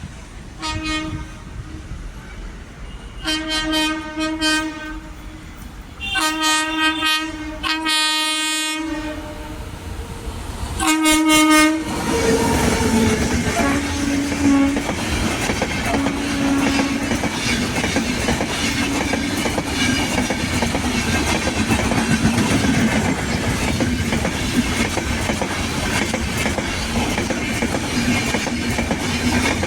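Locomotive horn sounding in about five blasts, the longest about a second and a half, as an express train approaches; about twelve seconds in, the train passes at speed with a steady rumble and clickety-clack of wheels over the rail joints.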